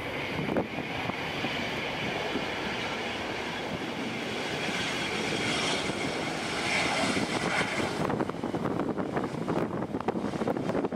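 Cessna Citation XLS business jet's twin Pratt & Whitney Canada PW545 turbofans whining with a steady hiss as the jet rolls along the runway after landing; the high whine grows louder, then drops away suddenly about eight seconds in. Wind buffets the microphone throughout.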